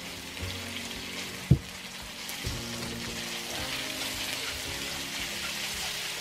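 Cornflour-coated pork pieces sizzling in hot oil in a wok as they are stirred, with a steady hiss throughout. A single sharp knock comes about one and a half seconds in.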